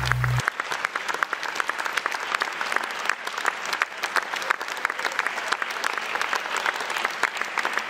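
Theatre audience applauding: dense, irregular clapping from many hands.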